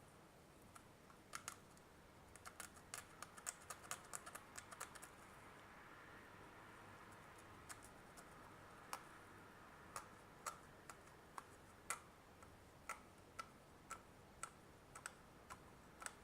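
Faint, irregular small clicks and taps of small parts being handled on a workbench. They come in a quick cluster for the first few seconds, then one about every half second, with a soft scratchy hiss in the middle.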